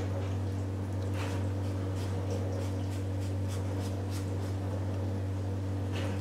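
Pastry brush sweeping and dabbing egg wash over a raw shortcrust pastry lid: soft, irregular brushing strokes. A steady low hum runs underneath and is the loudest sound.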